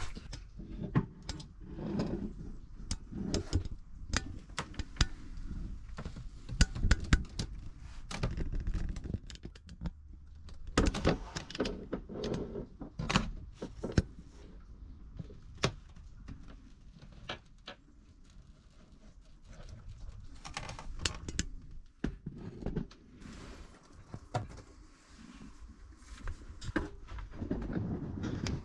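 Irregular knocks, clunks and light rattles of things being handled and set in place in a small enclosed space, with brief louder clusters near the middle and again near the end.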